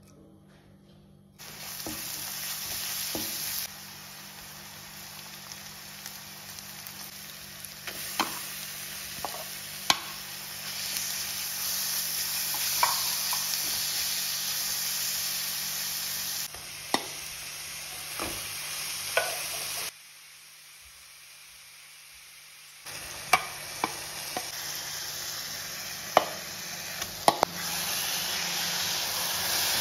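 Food frying in hot oil in a pan with a steady sizzle, and a spoon clicking and scraping against the pan now and then while stirring. The sizzle changes level abruptly a few times and drops to a quieter hiss for about three seconds around twenty seconds in.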